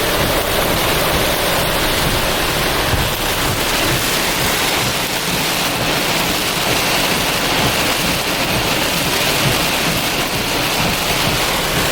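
Heavy rain and wind from a rain-wrapped tornado-producing storm, a steady loud rushing noise.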